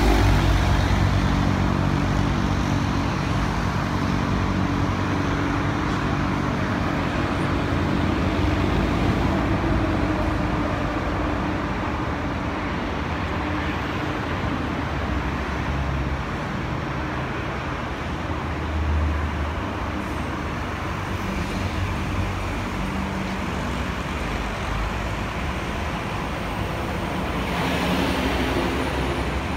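Steady engine rumble of city traffic blended with distant jet airliners on the taxiway, with a heavier low engine hum in the first couple of seconds and a brief swell near the end.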